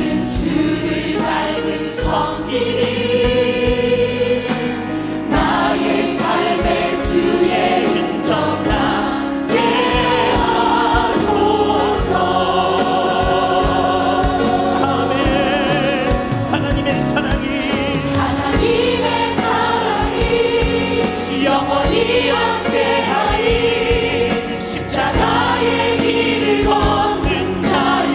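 Many voices singing a Korean worship song together, with vibrato, over a band accompaniment with a steady drum beat.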